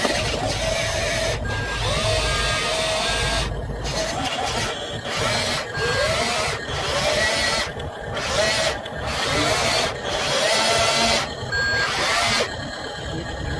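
Small electric motors and gearing of radio-controlled construction models whirring, the pitch rising and falling again and again as the throttle changes.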